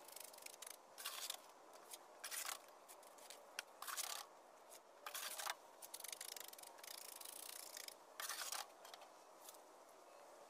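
Shovel scraping through wet concrete and dropping it in place around a plastic riser: a string of short, faint gritty scrapes, one every second or so.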